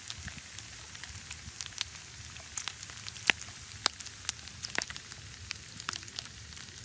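Pieces of pork frying in oil in a pan: a steady sizzle broken by frequent irregular sharp crackles and pops of spitting fat.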